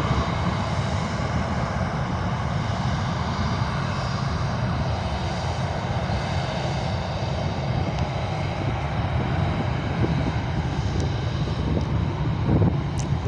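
Jet engines of a Boeing 737-800 (CFM56-7B turbofans) running in a steady, even rumble, with faint whining tones on top.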